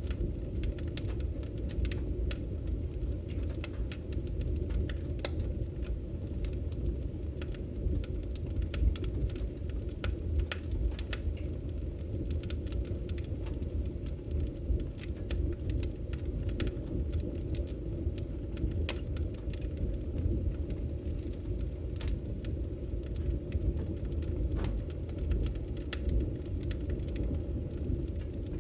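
Wood fire burning in a fireplace: a steady low rumble with irregular sharp crackles and pops scattered throughout.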